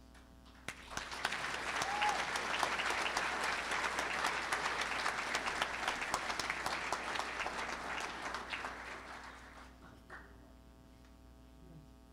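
Audience applauding. It starts about a second in and dies away near the end.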